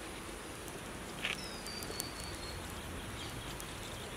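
Quiet outdoor ambience: a steady low hiss with a few faint ticks, and a thin high whistle a little over a second in lasting about a second.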